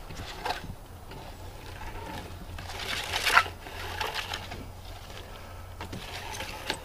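Handheld metal detector buzzing as it is swept over cedar cants to check them for hidden metal before sawmilling, swelling louder about three seconds in.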